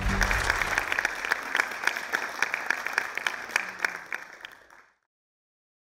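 Audience applauding, with many separate claps standing out, fading away and stopping about five seconds in.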